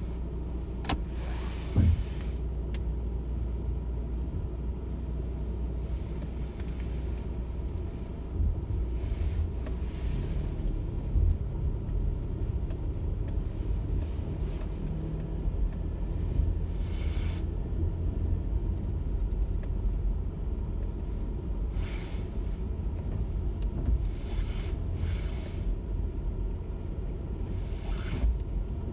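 Car driving, heard from inside the cabin: a steady low rumble of engine and road noise, with several brief hissing swishes at irregular intervals.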